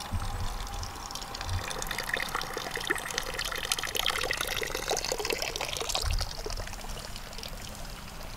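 Water from a stone wall fountain trickling and splashing into its basin, a steady hiss that is loudest in the middle, with a few low thumps on the microphone near the start and about six seconds in.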